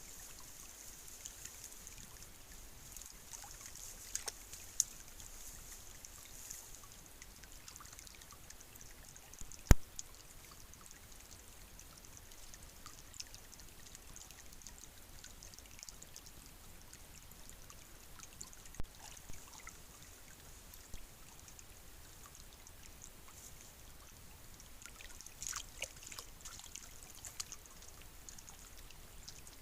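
Faint water trickling at an old beaver dam, with scattered small splashes from raccoons dabbling for food in the shallows. A single sharp click a little before ten seconds in is the loudest sound.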